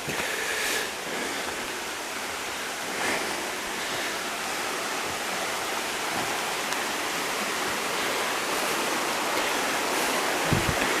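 Steady rush of running water from a mountain stream or waterfall, with a couple of brief low bumps near the end.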